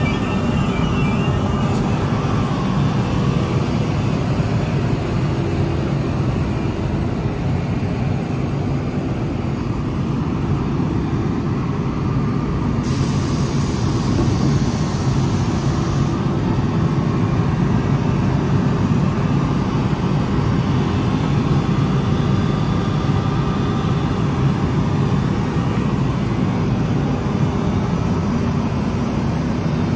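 NJ Transit locomotive and multilevel coaches rolling slowly past a platform: a steady, loud low rumble of the running gear on the rails. A brief hiss comes in about 13 seconds in and stops about three seconds later.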